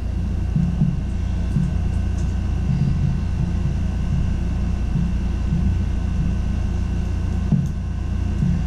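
Steady low mechanical rumble with a faint steady high whine, and soft irregular bumps over it.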